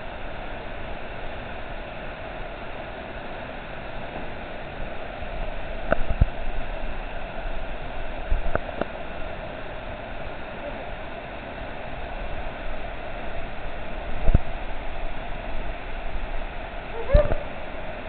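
Waterfall pouring into a plunge pool: a steady rushing noise, with a few short thumps or splashes scattered through it. A brief voice is heard near the end.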